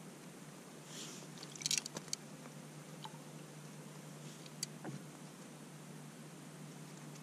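A few faint crackling clicks and crunches, bunched together about a second and a half to two seconds in, then single soft clicks a few times, over a low steady hum.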